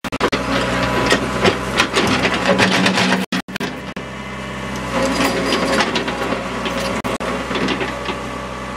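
Mini excavator's engine running while it digs, with frequent clanks and knocks from the bucket and arm working the soil. The sound cuts out briefly about three seconds in.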